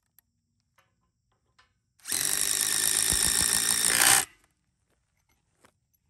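Power drill driving a screw through a sawmill leveling foot's steel plate into a timber bunk: a run of about two seconds, briefly louder just before it stops as the screw seats.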